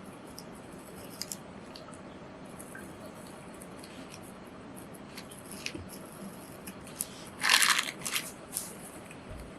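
An etching print on paper being cut: faint small clicks and rustles of the paper, then a loud crunching cut about three quarters through, followed by two shorter ones.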